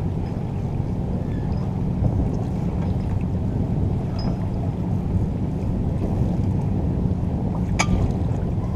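Steady low rumble of wind buffeting the microphone over the water, with one sharp click near the end.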